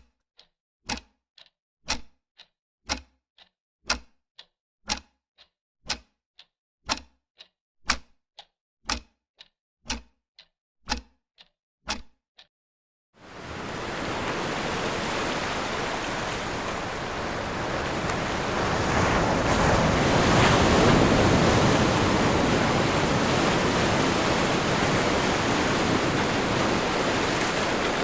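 A regular ticking, about two ticks a second, alternating stronger and weaker, for the first 13 seconds or so. Then ocean surf on a shore comes in suddenly as a steady wash of noise, swelling a little in the middle.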